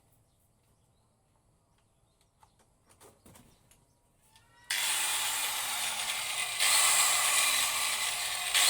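Hikoki angle grinder switched on after a few faint handling clicks. Its motor starts abruptly a little past halfway and runs steadily at full speed, getting louder about two seconds later. This is its test run after the worn carbon brushes were replaced, and the motor runs smoothly.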